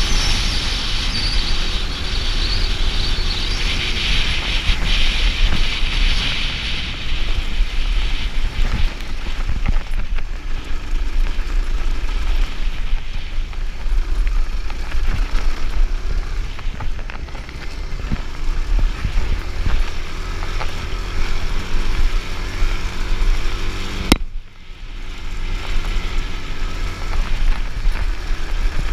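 Suzuki DR-Z400's single-cylinder four-stroke engine running under varying throttle as the dirt bike rides a rocky track, mixed with heavy wind buffeting on the helmet-mounted camera and knocks from the rough ground. About four seconds before the end the sound cuts out sharply for about half a second, then returns.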